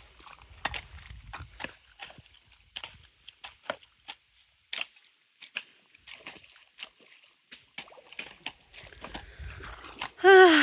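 Scattered light clicks and knocks, then near the end a short, loud animal call with a quavering, falling pitch.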